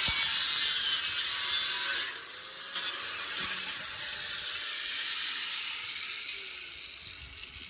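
A power tool cutting sheet metal stops cutting about 2 s in and briefly touches the metal again about a second later. It then spins down, its pitch falling as the sound fades away.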